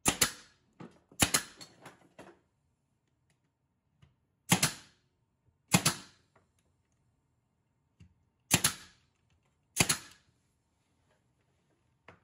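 Bostitch pneumatic nailer firing six times, each a sharp snap, in three pairs about a second apart, as it fastens a wooden floor transition strip down. A few faint clicks fall between the shots.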